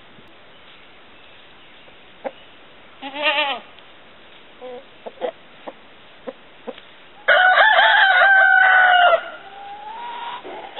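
A rooster crows once, loud and held for about two seconds, about seven seconds in, and a softer rising call follows it. Earlier there is a short wavering animal call and a few light clicks.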